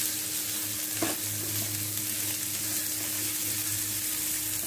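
Diced vegetables sizzling in hot oil in a nonstick frying pan as they are stirred with a silicone spatula, over a steady low hum. One light knock about a second in.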